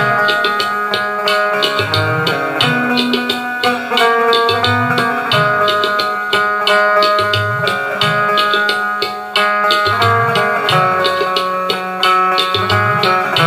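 Indian banjo (bulbul tarang) playing a bright plucked melody, its strings picked while the keys are pressed to change notes, over a backing drum beat with a low thump about every one and a half to two seconds.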